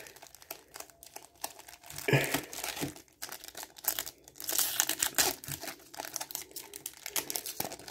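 Foil Yu-Gi-Oh booster packs crinkling as they are handled, then one pack being torn open across its top, with a crackly tearing about halfway through.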